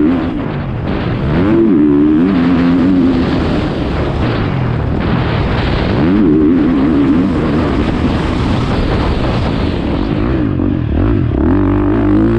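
Motocross dirt bike engine revving hard and falling back as the throttle is worked around the track, its pitch rising and dropping every few seconds, over a steady rush of wind noise.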